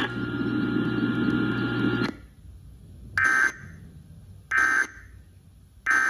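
About two seconds of steady hiss and hum from a weather radio's speaker, then three short data bursts a little over a second apart, the last at the very end. This is the Emergency Alert System end-of-message code (SAME "NNNN" bursts) closing a Required Weekly Test.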